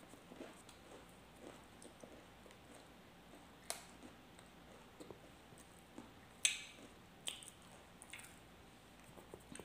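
A person chewing a mouthful of soft bread-roll sandwich, with faint wet mouth sounds and a few short, sharp clicks and smacks; the loudest comes about two-thirds of the way through.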